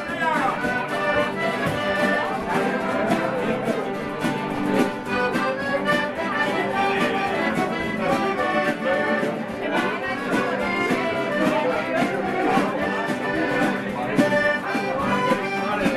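Live folk music on piano accordion and strummed acoustic guitars, with men's voices singing along.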